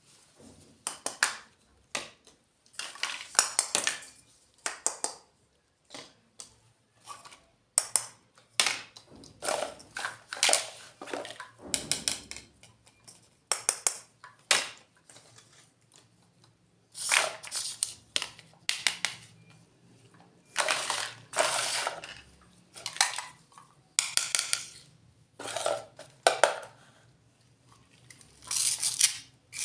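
Small plastic toy fruits and vegetables and their packaging being handled and unboxed: irregular crinkles, rustles and light clicks of hard plastic, coming in short bursts with brief pauses between them.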